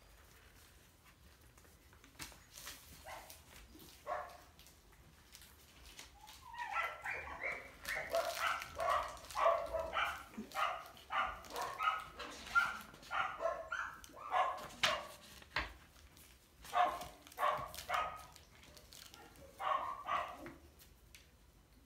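Five-week-old Goldendoodle puppies yipping and barking in play: quick runs of short, high calls starting about six seconds in and coming in bursts until near the end, with light taps before them.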